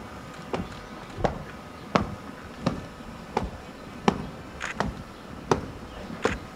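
Military boots marching on a dirt parade ground: sharp, evenly spaced footfalls, about three every two seconds.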